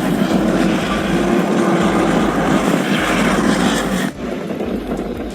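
A vehicle running, with a steady noisy rumble and a faint engine tone. It cuts off abruptly about four seconds in to a quieter, similar background.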